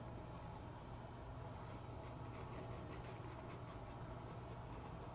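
Graphite pencil shading on sketchbook paper: a faint, rhythmic scratching of small circular strokes, several a second, that picks up about a second and a half in. The strokes rub graphite into the grain of the paper to darken the tone.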